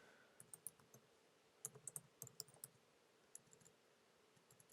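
Faint keystrokes on a computer keyboard: a few scattered clicks, then a quick run of half a dozen or so about a second and a half in, and one more a little later.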